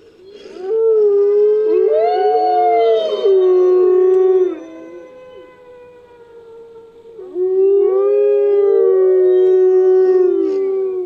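Several wolves howling together in two bouts, their long held howls overlapping at different pitches, sliding up at the start and down at the end, used as a creature sound effect.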